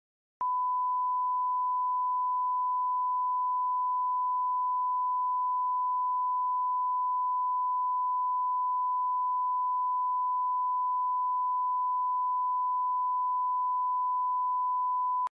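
Emergency-alert attention tone: one steady, high-pitched pure beep held for about fifteen seconds, switching on abruptly just after the start and cutting off abruptly just before the end.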